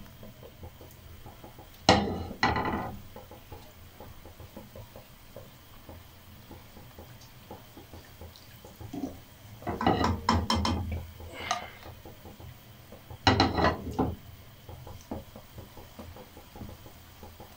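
Fritters deep-frying in hot oil in a karahi, a faint steady sizzle, with a metal slotted spoon clinking and scraping against the pan and a plate in a few short bursts.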